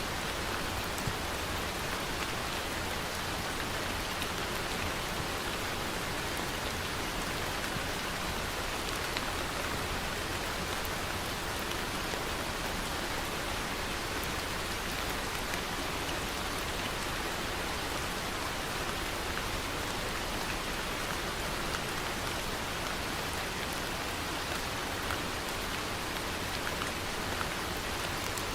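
Steady rain falling and pattering on a surface, an even hiss of drops with no change.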